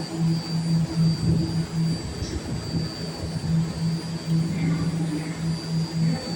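BART train running at the station: a steady high-pitched whine over a low hum that pulses on and off about twice a second.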